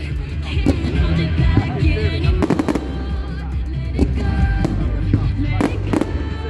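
Fireworks going off in irregular sharp bangs and crackles, over loud music with a heavy bass and a singing voice.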